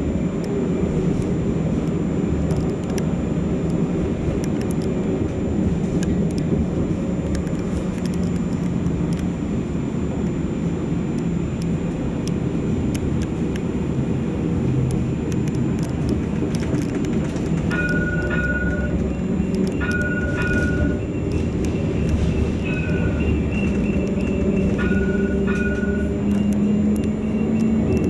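European-built, catenary-free light-rail tram running, heard from the cab: a steady rumble of wheels and running gear with a low traction-motor whine that rises near the end. About two-thirds of the way in come four short, steady electronic beeps.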